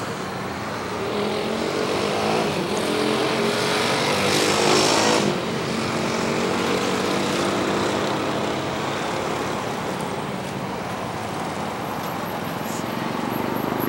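Distant Boeing 737-800's CFM56 jet engines running, their whine rising in pitch over the first few seconds as they spool up, over a steady rushing noise. A louder rush swells about four seconds in and drops off sharply about five seconds in.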